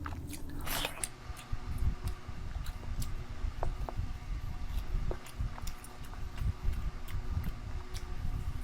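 Close-miked chewing and eating, with wet mouth clicks and smacks scattered over low, uneven thuds, and a brief rustling burst about a second in.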